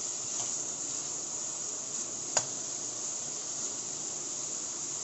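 Pork pieces sizzling in hot oil in a steel wok, a steady high hiss, with one sharp click about two and a half seconds in.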